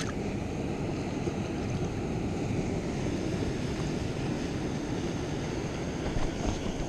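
Steady surf and wind noise on the microphone: an even wash of sound with no distinct events.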